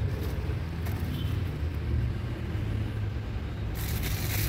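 Steady low rumble, with a short crinkle of the plastic wrap on a new panel air filter near the end.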